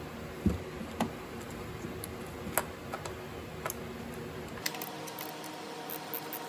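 Hand tool clicking and ticking as it works the T20 Torx screws out of an idle air control valve: a few separate clicks and knocks, then, from about two-thirds through, a quick run of light ticks.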